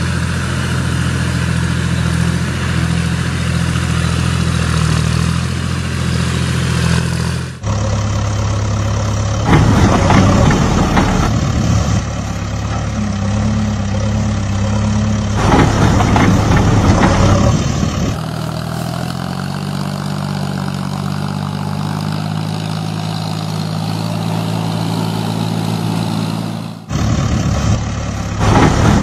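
Engine idling steadily, in spliced stretches whose pitch jumps abruptly at each cut, with louder rough bursts twice in the middle and once near the end.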